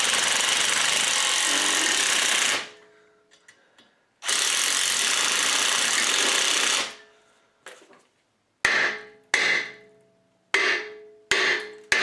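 Cordless impact driver running twice, for about two and a half seconds each, as it drives hex bolts into the threaded jacking holes of a rust-seized rear brake rotor on a Subaru Outback. Then a hammer strikes the rotor about five times in quick succession, each blow ringing, to break the rust bond with the hub.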